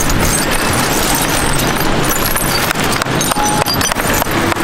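Steady, loud rushing of surf breaking on the beach, with scattered short clicks and knocks.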